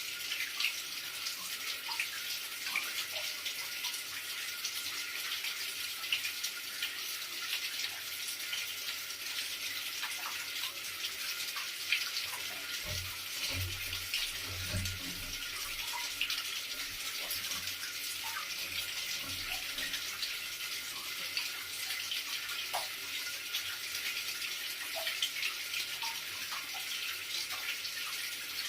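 Running water flowing and splashing steadily, an even rushing hiss with small droplet splashes scattered through it.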